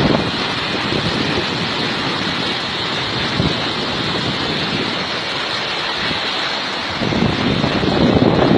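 Steady outdoor rushing noise, with louder low gusty swells in the last second or two.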